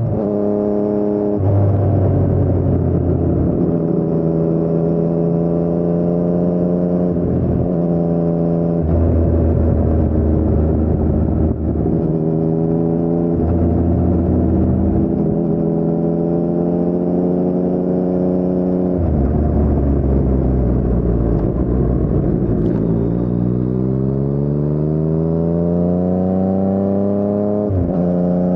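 2019 Yamaha MT-09's inline three-cylinder engine running through an Akrapovic carbon full-system exhaust with no dB killer, under way: the engine note holds and shifts with throttle and gears, then climbs steadily for about five seconds near the end before dropping off abruptly.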